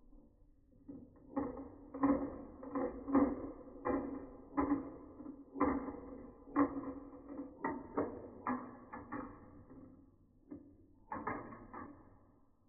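Balls rolling and clattering through a VTech Marble Rush plastic marble-run track: a string of irregular clicks and knocks, busiest from about a second in to near the end, with a last cluster just before the end.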